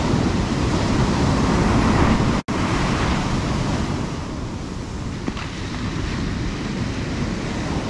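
Ocean surf breaking and washing up the beach, with wind rumbling on the microphone. The sound drops out for an instant about two and a half seconds in.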